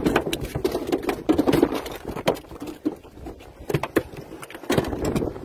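Freshly caught striped bass flopping on the boat deck: an irregular run of slaps and taps that pauses briefly past the middle, then comes back.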